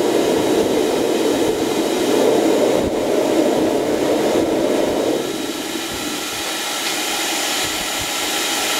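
Test combustion chamber of a homemade gas turbine burning with a steady combustion roar, its air supply rushing through it. About five seconds in the roar drops away as the flame goes out, leaving only the hiss of the air blowing through the chamber.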